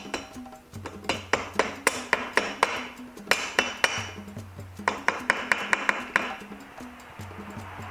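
Rubber mallet tapping a new 75cc cylinder down over the piston of a scooter engine: quick runs of sharp light taps, several a second, with short pauses between runs.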